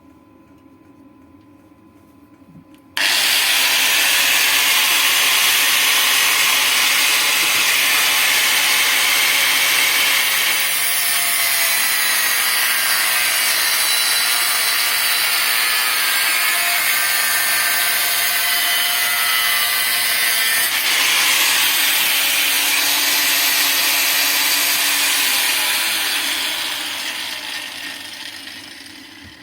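Angle grinder cutting off a small tab on a clutch pedal part. It starts abruptly about three seconds in, runs steadily under load, then spins down and fades near the end.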